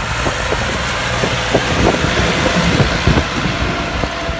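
Tractor engine running steadily under load as it pulls a disk tiller through the soil, with irregular knocks and clatter from clods and stones striking the discs.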